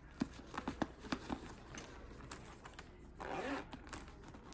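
Scattered light clicks and taps from a fabric toiletry bag being handled, its zipper and hook knocking, with a brief faint voice about three seconds in.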